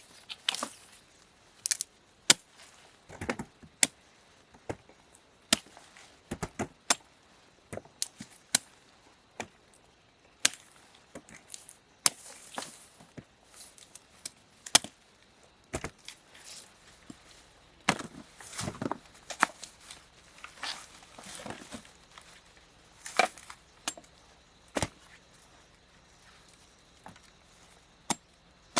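Sharp chopping blows on wood, struck irregularly about once a second, with short pauses between runs of strikes.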